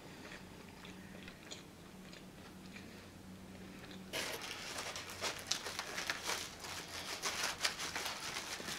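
Quiet chewing for the first few seconds. Then, about four seconds in, a sudden and much louder crinkling of aluminium foil starts, made up of many quick crackles, as an onion ring is picked out of a foil-lined takeout tray.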